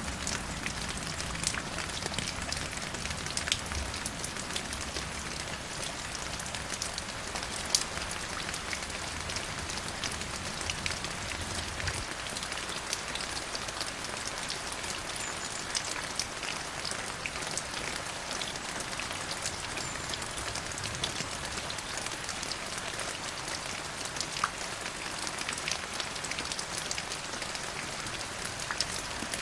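Steady rain falling, many separate drop hits clicking over an even hiss. A low rumble underneath stops about twelve seconds in.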